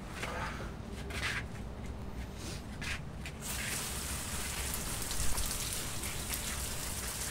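Water from a garden hose spray nozzle, switched on about halfway through and then running as a steady rush of spray.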